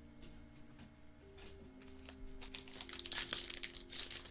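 A 2020 Bowman Chrome trading-card pack's foil wrapper being torn open and crinkled by hand, starting about halfway in and getting louder toward the end. Quiet background music with held notes plays underneath.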